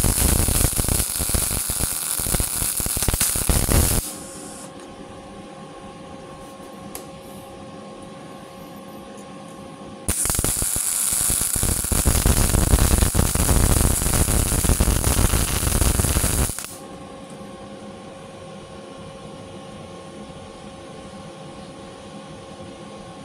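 CO2 MIG welding with a Multipro MIG-MAG 250NF G-KR inverter welder fed by an external wire feeder: two runs of arc crackle, the first about four seconds long and the second, starting about ten seconds in, about six seconds long. A steady hum goes on in the gaps.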